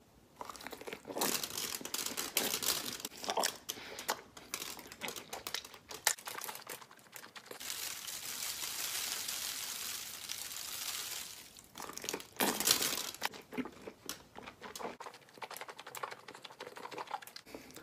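Close-up crunching bites and chewing of a crisp red food, in crackly irregular bursts. In the middle, sauce is poured from a bottle onto the food, heard as a steady hiss for about four seconds.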